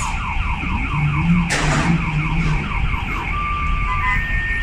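Car alarm sounding a rapid series of falling tones, about four a second, over a steady low rumble, with a brief sharp noise about a second and a half in and steadier tones near the end.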